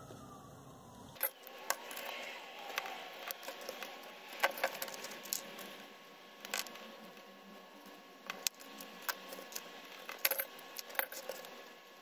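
Light, irregular clicks and taps from paper and cardstock pieces and a marker pen being handled on a cardboard board.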